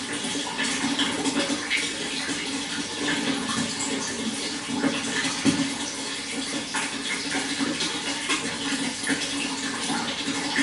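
Running water, a steady continuous trickling and splashing.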